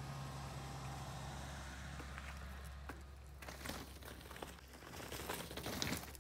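Mountain bike rolling down a rock face and past, its tyres crunching and clicking irregularly over rock and gravel, loudest in the last few seconds.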